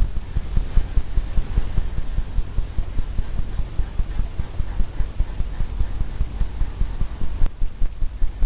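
Fan brush loaded with oil paint tapping repeatedly against a stretched canvas, a steady run of soft knocks about three a second.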